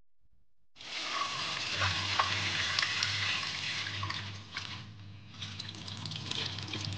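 Tap water running into a plastic bowl of squid in a stainless steel sink while hands rub and rinse the squid, with small clicks and splashes, starting about a second in. The sound dips briefly a little past the middle, then the splashing and swishing of water resumes.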